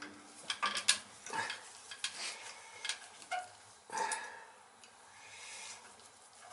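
Irregular light clicks, taps and small scrapes of hand tools and wiring being handled while a gas boiler control is wired up, most of them in the first four seconds.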